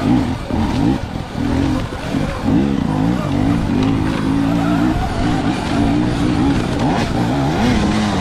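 Dirt bike engine revving up and down under throttle on rough single-track, its pitch rising and falling every second or two as the throttle is opened and rolled off.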